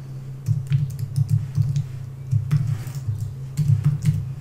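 Typing on a computer keyboard: irregular short runs of keystrokes, each a sharp click, over a steady low hum.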